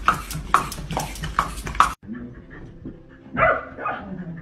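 A dog chewing crunchy food, with even crunches about twice a second. After a sudden cut, a dog gives one short bark or yip about three and a half seconds in.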